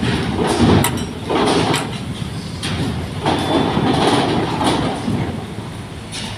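Cars driving off a ferry, engines running at low speed, with irregular clanks and rattles as they pass.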